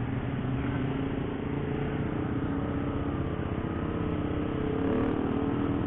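Motorcycle engine running steadily under load on a steep uphill climb, with road noise; its pitch rises slightly near the end.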